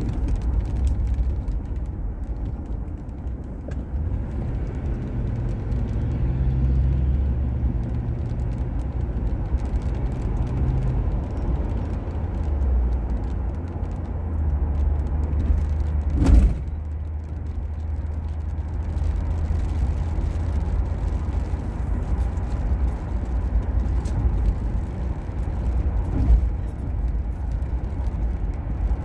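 Steady low rumble of a car driving on a wet road, heard from inside the cabin. A single sharp knock a little past halfway through, and a softer one near the end.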